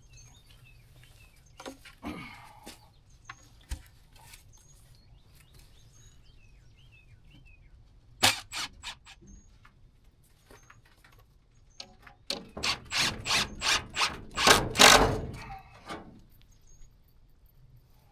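Repeated sharp knocks on a wooden barn door being repaired: a few about eight seconds in, then a quick run of about a dozen over four seconds, loudest near the end. Birds chirp faintly throughout.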